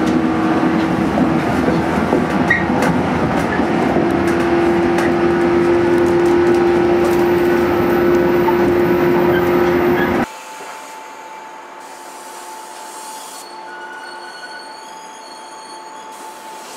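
JNR 115-series electric train running, heard from inside the car: MT54 traction motors humming with a steady pitch over the wheel and rail noise. About ten seconds in it cuts to a much quieter steady hum from the train standing at a station platform.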